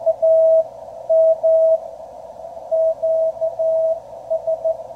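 A Morse code (CW) signal received on 40 metres by a QRP Labs QCX transceiver. It is a single steady-pitched tone keyed in dits and dahs over the hiss of the receiver's narrow CW filter.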